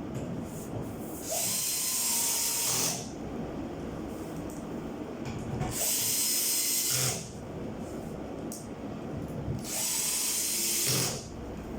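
Power drill run in three short bursts of about a second and a half each, with handling clatter between them.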